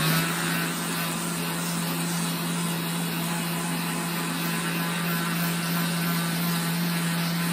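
Electric random orbital sander running at a steady speed and constant pitch while sanding the repaired fibreglass keel of a boat hull.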